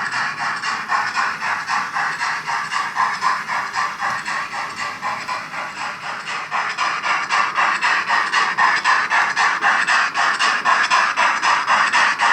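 Digital sound decoder of a Roco BR 01 H0 model steam locomotive playing an even, rapid steam chuff of about four to five beats a second through the model's small speaker; it grows louder about seven seconds in.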